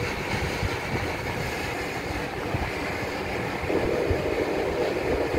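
Steady background rumble and hiss, growing louder with an added hum about two-thirds of the way through.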